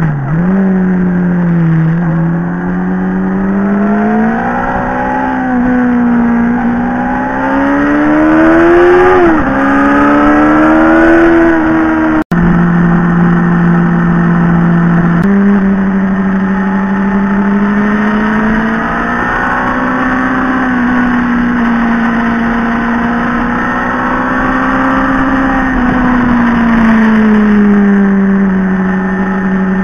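Motorcycle engine heard from the moving bike, its pitch rising and falling as the rider opens and closes the throttle through the bends, over a rush of wind noise. The sound breaks off for an instant about twelve seconds in.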